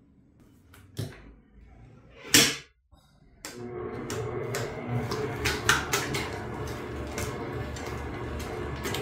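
Planetary stand mixer switched back on about three and a half seconds in: a steady motor hum as the dough hook kneads heavy bread dough, with irregular knocks from the dough working in the bowl. Before it starts there are only a click and a short knock.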